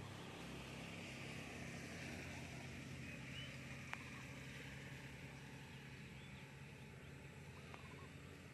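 Faint, steady low motor hum with a few faint bird chirps and a single sharp click about four seconds in.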